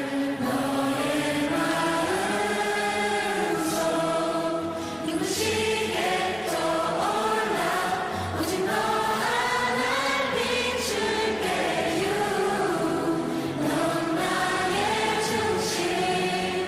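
Music with a chorus of singing voices layered over it.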